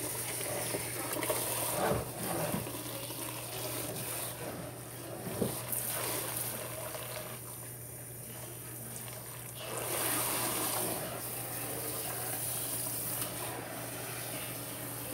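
Water from a kitchen tap running into a stainless steel sink, with a few light knocks. The flow sounds quieter for a couple of seconds midway, then picks up again.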